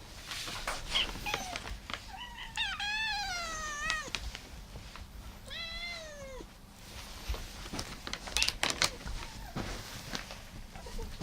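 Domestic cats meowing: two long drawn-out meows, about three and six seconds in, each falling in pitch at the end, with a few shorter calls and scattered clicks later on.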